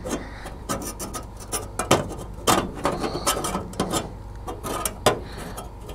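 A hand-cut steel sheet-metal patch being worked into a car's headlight bucket by hand: irregular metallic clicks, taps and scrapes as its edges catch and slide against the bucket's rim.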